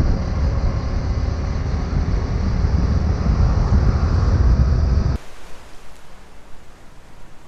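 Wind buffeting the microphone and road noise from a Vespa GT 125 L scooter riding at speed, a heavy low rumble. About five seconds in it cuts off suddenly to a much quieter, even wash of small sea waves on a rocky shore.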